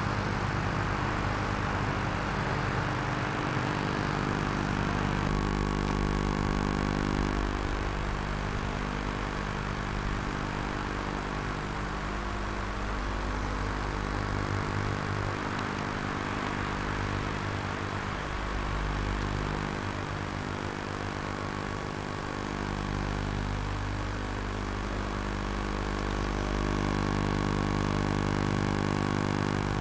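Big diesel engine of a Caterpillar off-highway dump truck running close by, its speed dipping and rising a few times in the middle.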